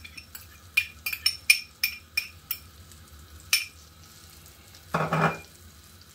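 A metal spoon tapping and scraping against a small glass bowl, a quick run of ringing clinks, as chopped spring onion and scotch bonnet pepper are knocked into a frying pan of melted margarine, with a faint sizzle. One more clink follows, then a brief louder rasp about five seconds in.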